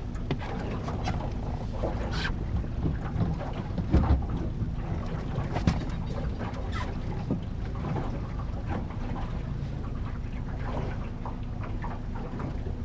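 Steady low hum of a fishing boat's motor with wind buffeting the microphone, and a couple of sharp knocks on the boat, the loudest about four seconds in.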